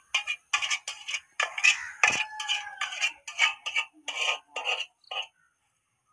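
A steel pot being poured into a steel dog bowl, splashing in uneven spurts for about five seconds and then stopping.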